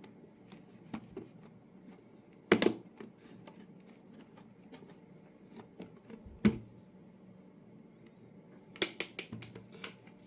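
Handling noises: scattered light clicks and taps, with sharp knocks about two and a half and six and a half seconds in and a quick run of clicks near the end.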